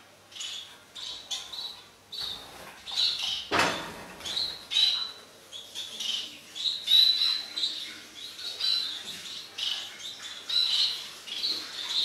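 European goldfinches chirping and twittering in a busy run of short, high calls, with a single brief thump about three and a half seconds in.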